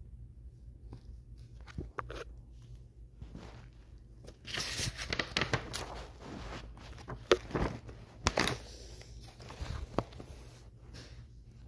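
Paper rustling and crinkling with sharp clicks and knocks as the pages of a spiral sketchbook are handled and turned close to a phone's microphone. The loudest burst of rustling comes in the middle, with two sharp knocks in it.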